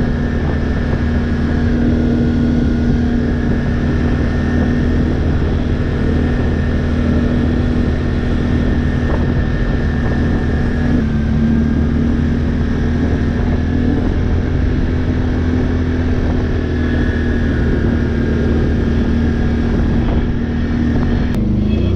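ATV engine running steadily at cruising speed, heard from the quad itself, with tyre and wind noise on a gravel road. Its pitch drops slightly about halfway through.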